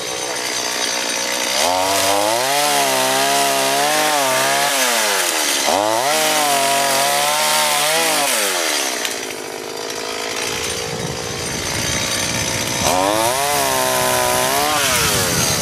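Chainsaw cutting into an overhead tree branch. The engine is revved up and held three times, two long pulls on the throttle and a shorter one near the end, and drops back to a rougher, lower running in between.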